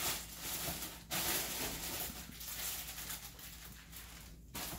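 Plastic packaging rustling and crinkling as it is handled and pulled about, in irregular bursts of noise.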